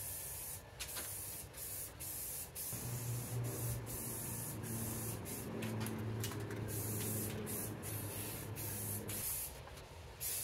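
Aerosol can of black spray paint hissing in short repeated bursts as it is sprayed onto a frame. A low steady hum sounds underneath from about three seconds in until about nine seconds in.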